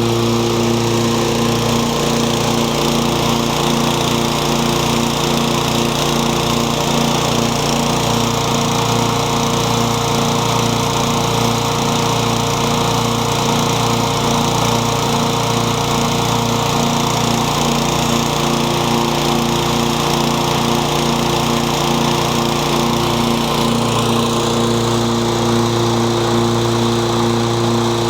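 Toro Super Recycler walk-behind lawn mower's engine running at a steady speed, with a slight regular pulse in its note.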